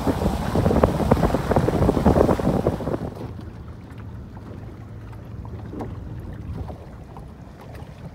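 Wind buffeting the microphone with a loud, irregular rumble, dropping about three seconds in to a softer steady hiss of wind and water.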